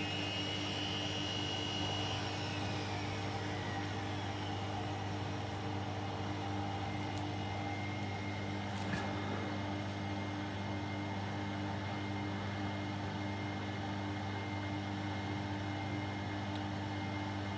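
Candy front-loading washing machine running in its spin cycle: a steady motor hum with a whine that glides in the first few seconds, and an occasional faint click. The owner is trying to find the cause of a clacking in the spin, and suspects a belt with a hump where it sits on the motor.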